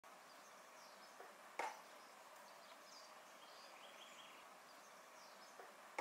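Near silence: faint outdoor ambience with a steady hiss and scattered faint, high bird chirps, and a single sharp click about one and a half seconds in.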